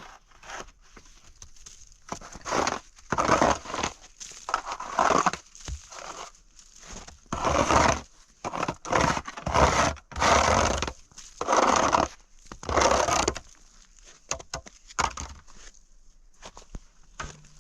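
Footsteps crunching through snow, a loud crunch roughly once a second, trailing off to softer steps near the end.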